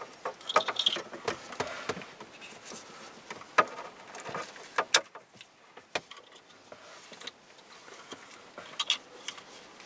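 Car stereo wiring harness being handled: cables rustling, with several sharp clicks of plastic plug connectors being fitted together.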